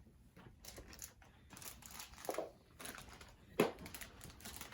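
Gift packaging being handled: scattered crinkling and rustling as items are unwrapped and pulled out, with one sharp tap or knock about three and a half seconds in.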